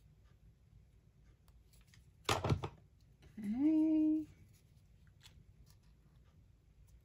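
Quiet handling of paper pieces with faint ticks. A bit over two seconds in there is a brief loud knock. About a second later comes a short hummed voice note that slides up and then holds for under a second.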